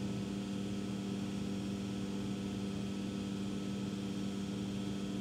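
Steady low hum, one constant tone with overtones, unchanging throughout.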